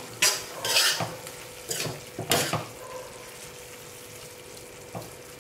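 Steel spoon stirring thick mushroom masala gravy in a stainless steel frying pan: about four wet scraping strokes in the first two and a half seconds, then a quieter steady sizzle of the gravy cooking, with one light tap about five seconds in.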